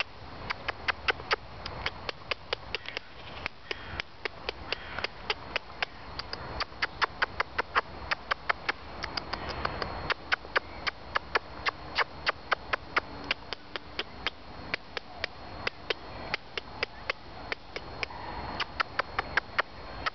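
A fast run of sharp clicks, about four or five a second and unevenly spaced, over a faint steady high whine.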